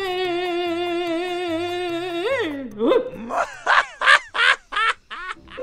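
A woman's long, drawn-out, slightly wavering cry held for about two seconds, followed by a string of about six short rising-and-falling cries, over faint background music.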